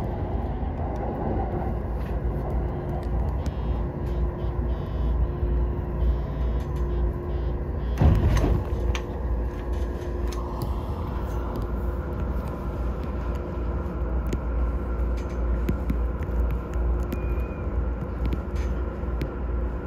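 Inside an E231 series commuter train with its emergency brakes applied: a steady low rumble, a brief loud burst about eight seconds in, then a steadier hum.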